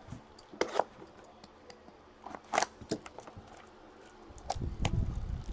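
Trading cards and card packs being handled: scattered light clicks and rustles of card and wrapper, with a few sharper ones about a second in, midway and near the end.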